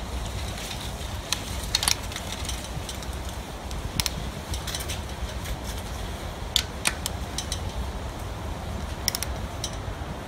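Torque wrench and socket on engine-mount bolts making a few sharp metallic clicks at irregular intervals over a steady low rumble, as the bolts are brought up to 65 foot-pounds.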